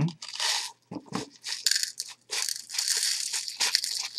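Basing sand and fine gravel being scooped up and shifted in a container: a gritty scraping rustle in several bursts.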